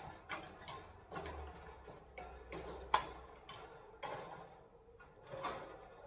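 A dozen or so irregular light clicks and knocks on a white wire parrot cage, with a sharper knock about three seconds in.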